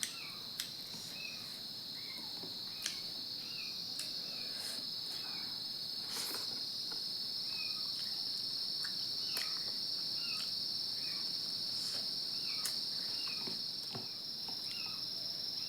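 Steady high-pitched insect chorus, like crickets, trilling without a break. A few faint sharp clicks sound here and there.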